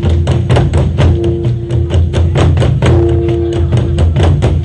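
Korean drum ensemble beating a fast, steady rhythm, several strokes a second, meant to evoke galloping horses' hooves, over a heavy low drone. A held tone sounds in the accompaniment for about a second at a time, twice.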